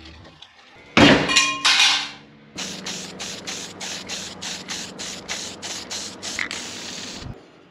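Aerosol can of coloured galvanising spray paint hissing: a louder burst about a second in, then a run of short spray pulses at about three or four a second.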